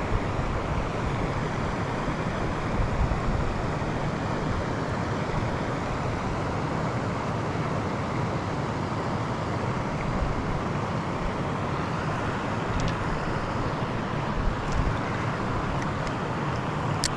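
Steady rushing of flowing creek water, with a few faint clicks in the last few seconds.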